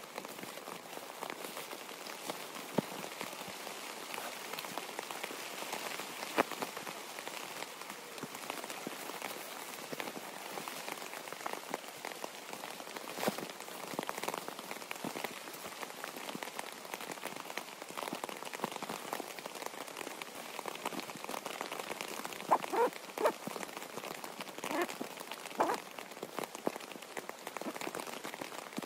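Nylon sleeping bag rustling and scrunching as it is stuffed and squeezed down into its stuff sack, with a few louder bursts of rustling near the end, over a steady patter of rain on the tent.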